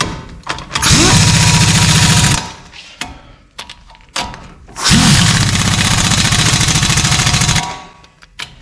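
Impact wrench hammering bolts down in two bursts, a short one about a second in and a longer one near the middle, each starting with a quick rising whine as the motor spins up; these are the Loctited brake caliper bolts being run in.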